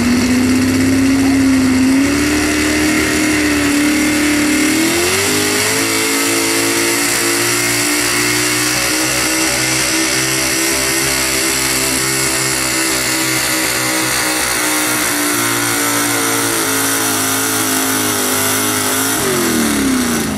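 Pulling truck's engine running flat out under load during a truck pull. The revs climb over the first five seconds, hold high and steady for most of the run, then drop off quickly near the end.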